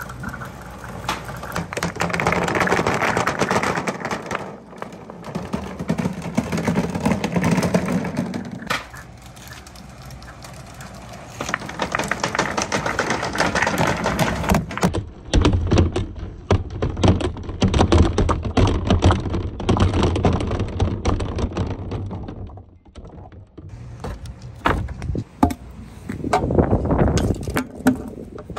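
Many balls rolling and clattering down a marble run of handmade slopes and a rain gutter: a dense stream of clicks and knocks, with a low rolling rumble through the middle stretch.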